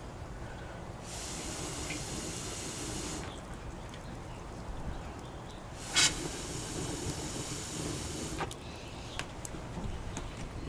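Wood fire in a fire pit hissing in two spells, with a sharp pop about six seconds in and a few smaller crackles after it, over a low steady rumble.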